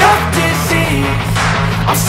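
Background music: a rap-rock song with a steady bass line.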